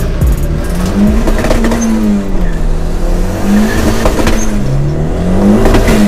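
Turbocharged Honda Civic engine heard from inside the cabin while driving, its pitch rising and falling several times as it revs up and drops back.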